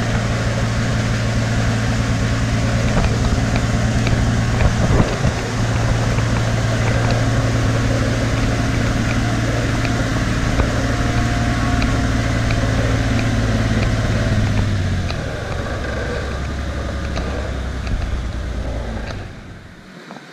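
Praga V3S military truck's air-cooled Tatra 912 inline-six diesel running steadily as the loaded truck crawls along a forest track, with one sharp knock about five seconds in. About fifteen seconds in the engine note drops, and near the end the sound falls away sharply.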